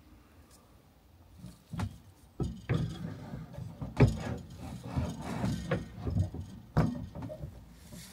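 Gas pipe with its isolator valve being worked back through a hole in wooden cabinet panels: irregular knocks and scraping of the fittings against the wood, starting about a second and a half in.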